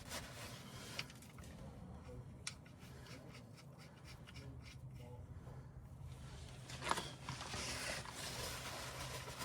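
Small handling noises: scattered light clicks and rubbing, with a short burst of louder clicks and rustle about seven seconds in, over a steady low hum.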